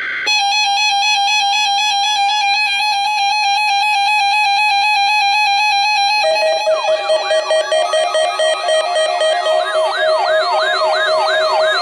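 Emergency alert tones over radio: a steady electronic attention tone for about six seconds, then a warbling alarm whose pitch sweeps up and down about twice a second over a held lower tone, like a siren.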